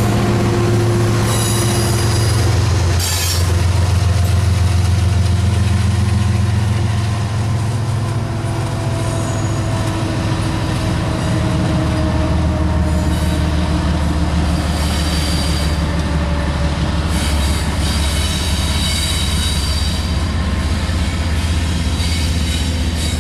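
The diesel engine of a GE ES44AC locomotive, running as the rear distributed-power unit, passes and pulls away with a steady low drone that drops in pitch a few seconds in. Wheels squeal on the rails several times, high-pitched, mostly about halfway through and near the end.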